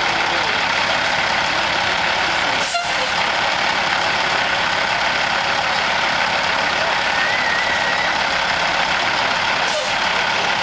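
Big tow truck's engine running steadily, with two brief sharp sounds about three seconds and ten seconds in.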